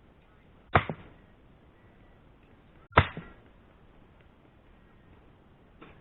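Sledgehammer striking a steel wedge driven into a block of granite to split it: two sharp blows about two seconds apart, each dying away quickly.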